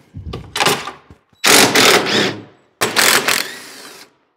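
Cordless power driver run in three short bursts, backing bolts out of a snowmobile chassis brace bar. The middle run is the loudest, and the last trails off as the motor spins down.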